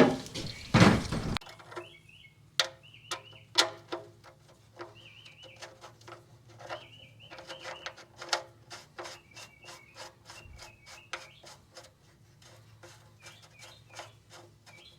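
Engine oil pouring from the drain hole into a drain pan, cutting off suddenly about a second and a half in. After it, small birds chirp again and again over scattered sharp clicks and taps and a faint low steady hum.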